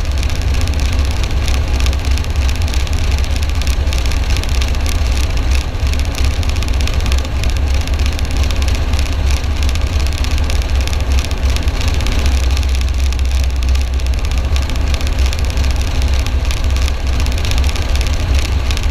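Military helicopter running steadily, a loud continuous engine and rotor noise with a heavy deep rumble.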